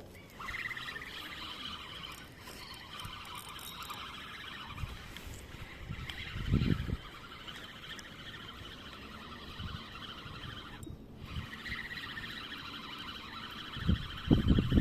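A dense, steady chorus of high chirping animal calls, broken off for a moment about eleven seconds in, with a few low thumps.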